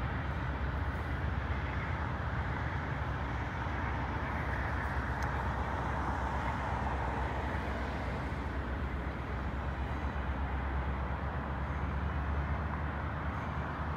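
Freight train of tank cars rolling past at a steady pace: a continuous low rumble with a rushing hiss of steel wheels on the rails.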